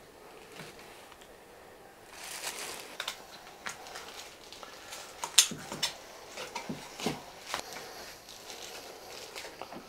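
Filleting knife boning out a pig shoulder: irregular sharp clicks and taps of the thin blade against bone and cutting board, with soft rustling between them.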